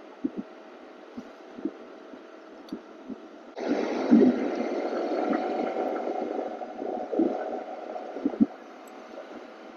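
Muffled wind and riding noise on a motorcycle rider's wireless clip-on mic, with scattered dull thumps of wind buffeting. A louder rush of noise starts suddenly about a third of the way in and fades after a few seconds.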